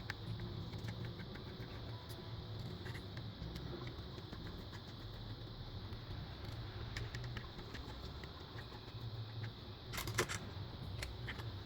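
Light clicks and taps from computer parts being handled during installation, over a steady low hum, with a quick cluster of clicks near the end.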